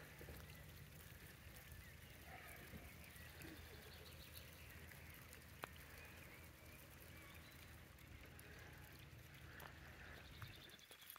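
Near silence: faint lakeside ambience with a steady low rumble and a few faint distant bird calls. A single small click sounds about halfway through, and the rumble stops near the end.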